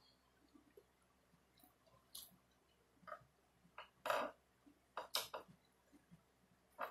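Faint close-up eating sounds: chewing and lip smacking, heard as scattered short wet clicks, loudest about four and five seconds in.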